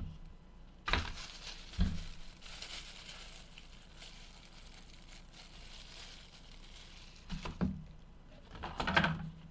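Protective plastic film being peeled off and crinkled from small action-camera parts: a steady crinkling rustle that starts suddenly about a second in and lasts several seconds. A few light knocks of parts being handled, the loudest near the end.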